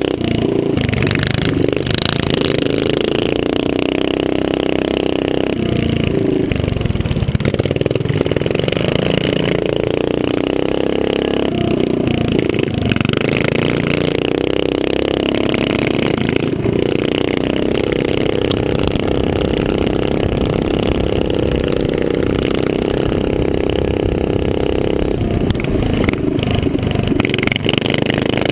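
Small dirt-bike engine running hard at high revs, picked up close by a helmet-mounted camera. The pitch drops and climbs again several times as the throttle is eased and reopened through the turns.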